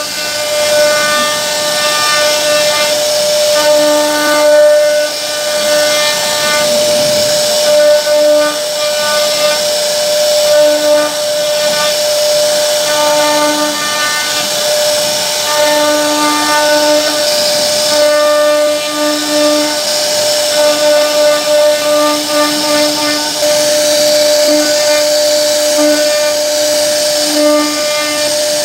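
CNC router spindle running with a steady high whine while its bit carves a relief pattern into a wooden door panel. A lower tone cuts in and out every second or so as the bit moves through the cut, over a continuous hiss.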